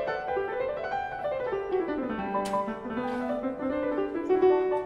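Background piano music playing a melody.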